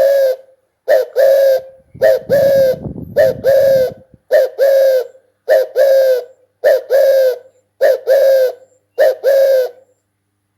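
Spotted dove cooing: a two-part coo, a short note then a longer falling one, repeated about once a second, nine times in all, then stopping.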